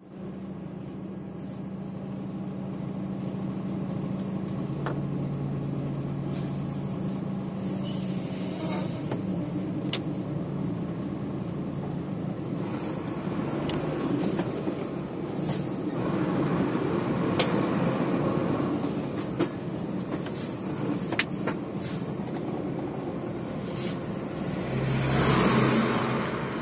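Heavy vehicle's engine idling and creeping in stop-and-go traffic, heard from inside the cab: a steady low hum with scattered sharp clicks. About a second before the end it swells louder with a brief high hiss.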